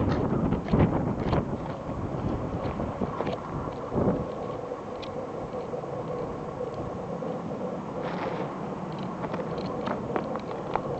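Blizzard wind gusting and buffeting the microphone. The gusts are strongest at the start, then ease, with a faint steady hum underneath through the middle.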